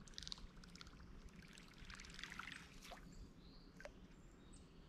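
Faint water trickling and dribbling with light clicking from a fishing reel being cranked to bring in the lure. A few faint high chirps come near the end.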